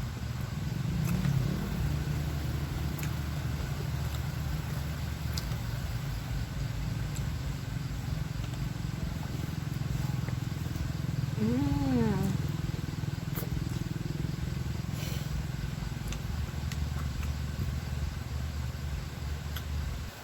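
A steady low rumble like a motor running, with faint clicks through it. About twelve seconds in there is a short pitched sound that rises and falls.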